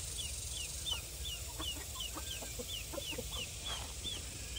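A poultry chick peeping steadily, about three short high peeps a second, with hens clucking softly underneath.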